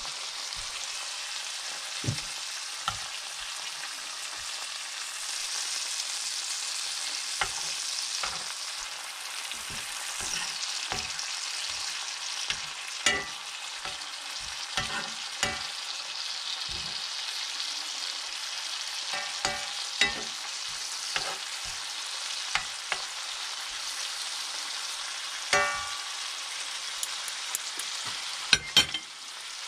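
Bacon strips frying in a hot iron frying pan: a steady sizzling hiss of fat, broken by scattered pops and clicks, with a few sharper pops near the end.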